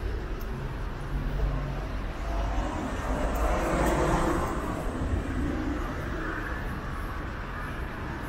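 Street traffic: a car passes on the wet road, its tyre hiss swelling to a peak about four seconds in and fading, over a steady low engine rumble.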